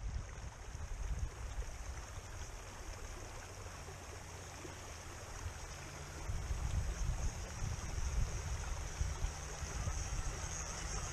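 Shallow creek rippling over rocks, with wind rumbling on the microphone. It grows louder from about halfway through as a radio-controlled scale truck splashes through the water toward the microphone.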